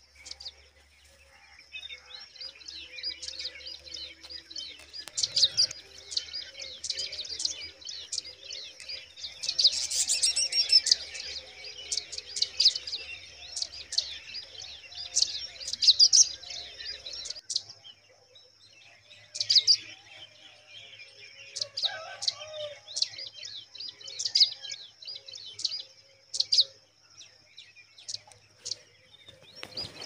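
Pipit nestlings begging: many short, high, thin cheeps in quick runs, busiest about ten seconds in, over a faint steady high-pitched tone.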